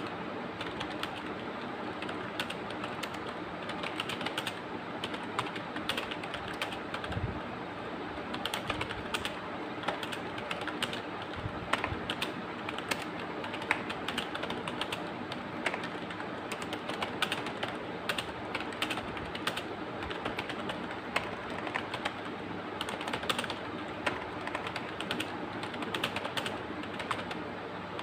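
Fast touch-typing on a computer keyboard: a continuous, rapid run of key clicks, about 65 words a minute.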